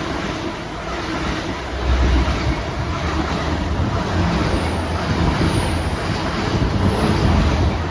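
Two coupled Great Western Railway Class 802 bi-mode trains passing through at speed on diesel power: a steady rumble with wheel and rail noise, getting louder about two seconds in.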